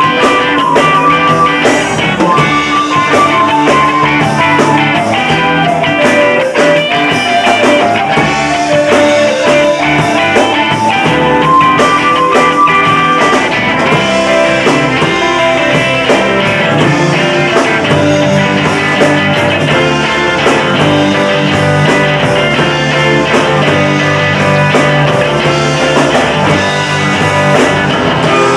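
Rock band playing live through a club PA: electric bass, drum kit and keyboard in a loud, steady instrumental passage, with a melodic lead line moving over the top.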